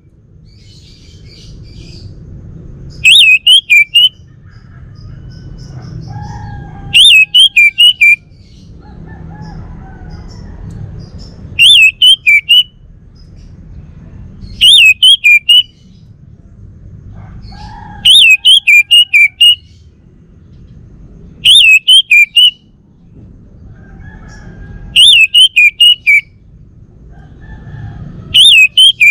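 Male orange-headed thrush (anis merah) singing: short bursts of quick, high, loud notes, each phrase under a second long, repeated about every three to four seconds.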